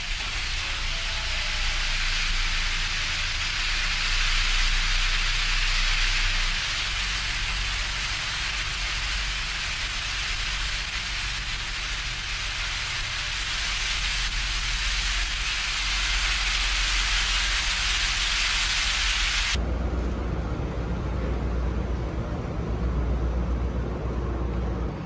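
Steady loud rushing hiss of air noise in a ferry's enclosed vehicle deck. About twenty seconds in it cuts off abruptly, leaving a low rumble.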